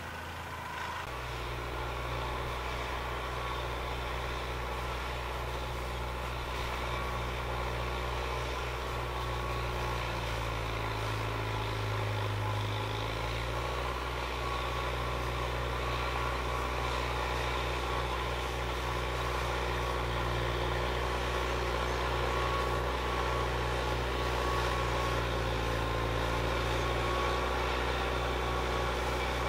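Kubota 110 tractor's diesel engine running steadily under load while pulling a rotary tiller through the soil, its pitch dipping and recovering briefly about ten seconds in.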